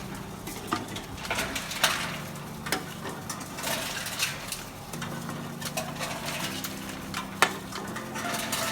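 Bottle-and-can deposit return machine running with a steady low hum, with irregular clinks and knocks of empty containers going through it and one sharper knock near the end.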